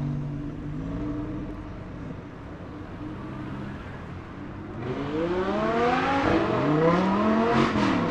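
A car engine running with a low steady note that fades, then a car accelerating hard from about five seconds in, its engine note climbing steeply and getting loud, with the pitch dropping back just before the end.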